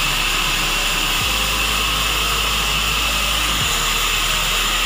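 Sawmill machinery running, with the large band saw's motor and blade giving a steady whirring noise and a low hum.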